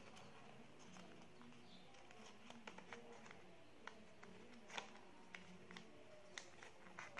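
Faint crinkling and scattered soft ticks of origami paper being handled and creased by fingers, over near-silent room tone.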